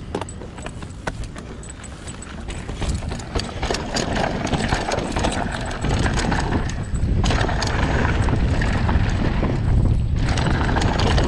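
Mountain bike rolling down a loose, rocky dirt trail: tyres crunching over gravel with many sharp clicks and rattles from stones and the bike, and wind rumbling on the microphone. It gets louder about six seconds in as the bike picks up speed.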